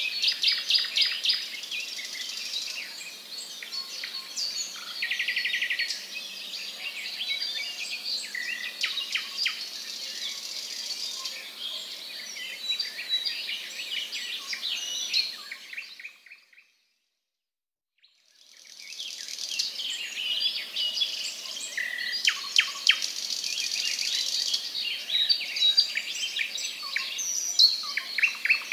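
A dense chorus of many birds chirping and calling at once, with a short rapid rattling trill about five seconds in. The chorus fades to silence about sixteen seconds in and fades back up about two seconds later.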